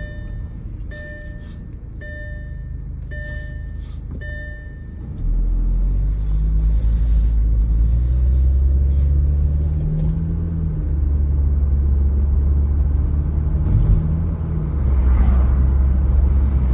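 Inside the cabin of a 2008 Audi A4 B7: a warning chime dings about once a second for the first five seconds. Then, about five seconds in, the 2.0-litre turbocharged four-cylinder engine pulls away under load. Its low drone gets louder and rises and falls in pitch twice as the car is driven.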